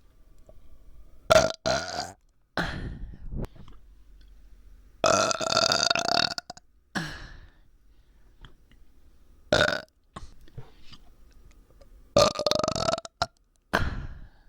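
A person burping over and over from a bloated, aching stomach: a string of short burps, with a long pitched one lasting over a second about five seconds in and another longer one about twelve seconds in.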